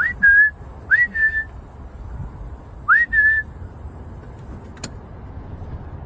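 A person whistling three times, each whistle a quick rising note that settles into a short held tone, over a steady low background rumble. A single sharp click near five seconds in.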